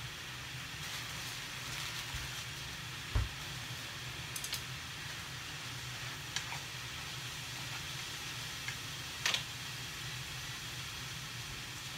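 Bean sprouts and pork sizzling in a frying pan on an induction hob, a steady hiss with a low hum underneath. A dull thump about three seconds in, then a few sharp clicks of cooking chopsticks against the pan as the food is stirred.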